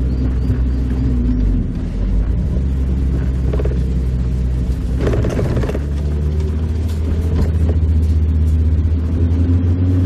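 Mazda Roadster (MX-5) inline-four engine running under way with the top down, mixed with road and wind noise. About five seconds in there is a brief rougher rush of noise, and after it the engine note settles into a steadier, slightly louder drone.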